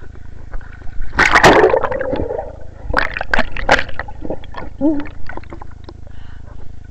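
Pool water splashing and gurgling around a camera dunked at the surface, with a loud splash about a second in and more splashes around three to four seconds in.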